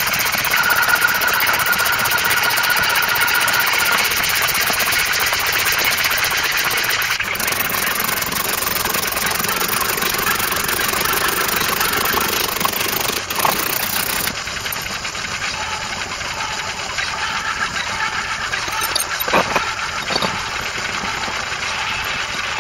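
Steady mechanical running noise, loud and even, with a faint whine early on, dropping a little in level about two-thirds of the way through.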